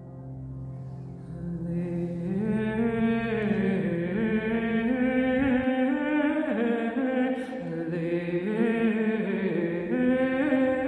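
Wordless, chant-like intuitive singing by a woman's voice, gliding between long held notes. Beneath it runs a low steady drone that stops about halfway through.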